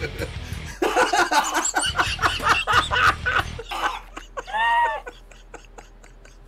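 Two people laughing hard in breathy bursts of snickering and giggling, loudest in the first half and dying down after that.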